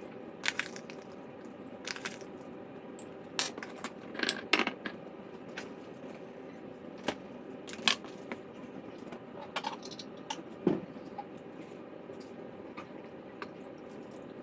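Glass canning jars and their lids being handled on a counter: scattered clinks and light knocks at uneven intervals, a few sharper than the rest. A steady low hum runs underneath.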